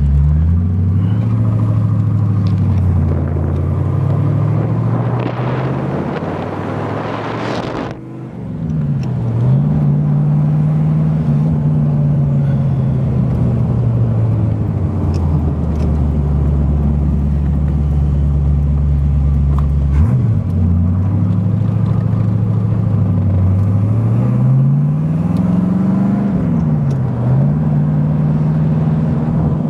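1968 Corvette's small-block V8 with chambered dual exhaust, heard from inside the car while it is driven. The engine note climbs under throttle, drops sharply about eight seconds in, holds steady, then dips and climbs again a couple of times as it is driven along.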